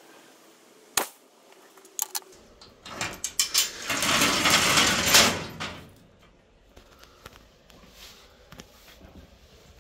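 A sharp knock about a second in and a few clicks, then a few seconds of loud rustling and scraping handling noise that fades out, followed by scattered faint ticks.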